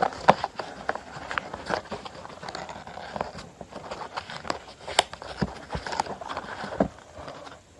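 Sheet of A5 copy paper being folded and creased by hand against a tabletop: crisp rustling and crackling with many irregular sharp taps and clicks as the folded plane is pressed and handled.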